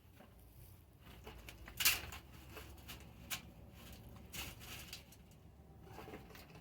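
Soil in a 5-gallon bucket rustling and crumbling as carrots are dug and pulled out by hand, with a few short scrapes and knocks; the loudest is about two seconds in.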